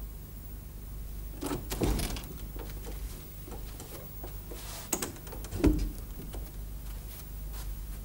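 A wooden interior door opening with latch clicks and knocks, then a thud about four seconds later as it is shut.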